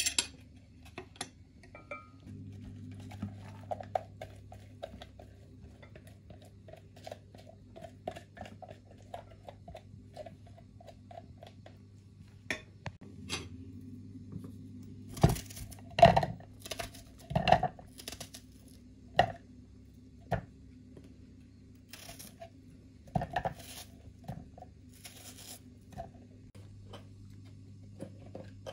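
Kitchen prep with no talking. First a low steady hum with soft rhythmic pulses, about two a second, for several seconds. Then a run of sharp knocks and clinks from a glass chopper bowl and utensils, loudest about halfway through.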